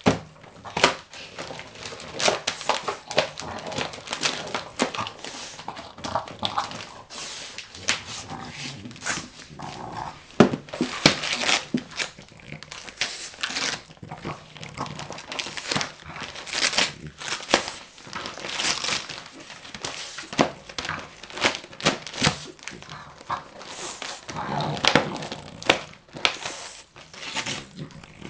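French bulldog tearing and crinkling the wrapping paper of a present with its teeth and paws: an irregular run of paper crackles and rips, with sounds from the dog itself now and then.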